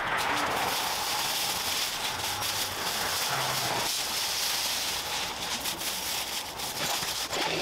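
Cut bamboo canes and dry leaves rustling and crackling as they are dragged out through the brush by hand: a steady rustle with many small snaps.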